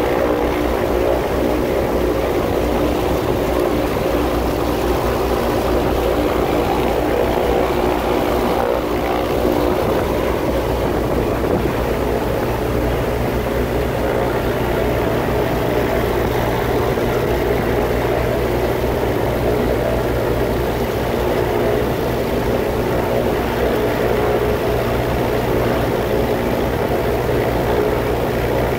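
Grob 109 motor glider's piston engine and propeller running steadily, heard from inside the cockpit, with the low hum growing a little stronger about twelve seconds in.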